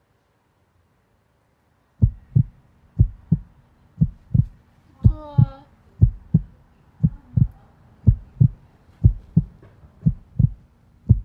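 Heartbeat sound effect: paired low thumps, lub-dub, about once a second, starting about two seconds in. A brief warbling tone sounds over it about five seconds in.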